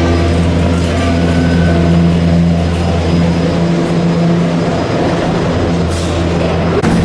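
Steady low rumble of the gondola lift's station machinery running, with background music over it.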